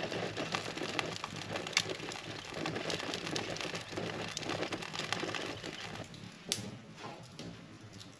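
Wood fire crackling in an open hearth, with a steady run of small irregular pops and snaps and a sharper crack about two seconds in and another about six and a half seconds in.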